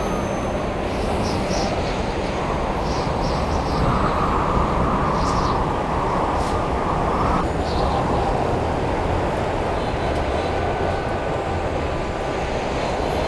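Steady rumbling outdoor city noise heard from a rooftop. A hum rides over it from about four seconds in and stops abruptly at about seven and a half seconds.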